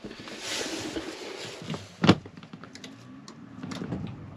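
A single heavy thunk in the cab about two seconds in, then a few light clicks as the ignition key is turned, with no engine cranking: the battery is dead.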